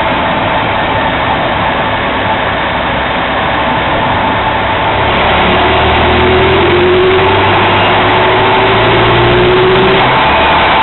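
Honda Accord Euro R engine running, getting louder about five seconds in as a tone climbs slowly with the revs.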